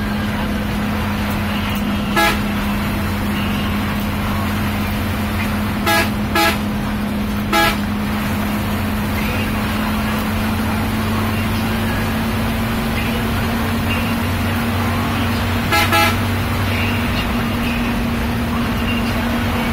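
Inside the cabin of an intercity bus at cruising speed: the engine and road noise keep up a steady hum. Short horn toots sound over it: one about two seconds in, a quick pair and another single toot around six to eight seconds, and a double toot near the end.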